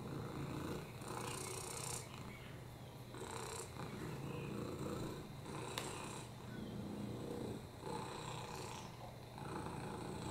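Black domestic cat purring close to the microphone while being petted, a steady low purr that swells and fades with each breath, about every one and a half to two seconds. One brief click near the middle.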